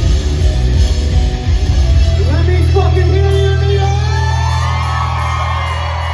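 Rock band playing loud through a crowded venue's PA. About two seconds in the playing stops on a held chord that rings out and slowly fades, while a voice wails and yells over it with sliding pitch.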